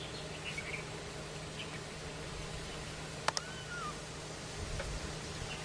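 Steady low hum and hiss with a few short high chirps near the start. A single sharp click comes a little past halfway, followed at once by a short gliding chirp.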